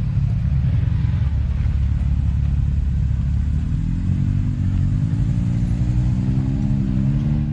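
Side-by-side UTV engine running loud and steady, its pitch climbing gradually from about halfway through as it revs up.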